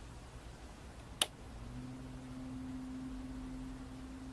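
A switch clicks once as the McIntosh C28 preamplifier is powered off. About half a second later a faint, steady low hum starts and lasts a few seconds before dying away: the preamp's turn-off transient noise, reduced but still present after a 1.8K resistor-and-diode modification.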